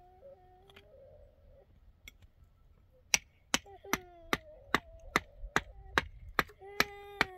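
Hammer strikes knocking on a concrete block in a steady rhythm of about two and a half a second, starting about three seconds in after a couple of lighter taps. A voice holds long steady notes over the strikes, twice.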